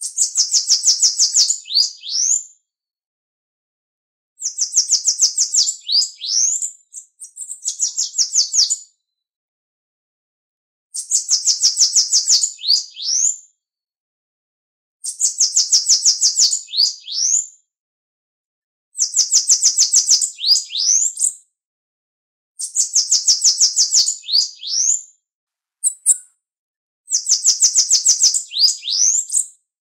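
Bananaquit (Coereba flaveola) singing: a high, fast run of rapid notes ending in a few slurred notes, each song about two and a half seconds long. The song repeats about eight times, with short silent gaps between songs.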